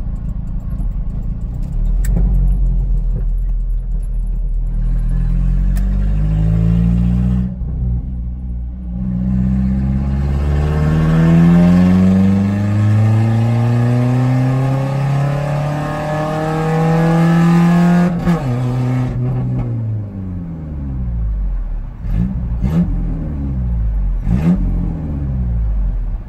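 Truck engine at full throttle, heard from inside the cab, pulling hard through the gears. The revs climb in long rising sweeps, with gear changes about eight and eighteen seconds in. After the second shift the revs drop and settle lower in a higher gear.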